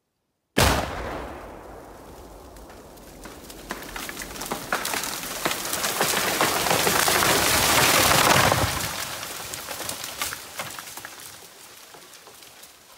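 11 lb of Tannerite packed in a 4-inch PVC pipe detonating in one sudden, loud blast about half a second in, which dies away over the next couple of seconds. Then a long crackling, rushing crash of snapping branches and falling debris swells to a peak about eight seconds in and fades out as the blown pine comes down.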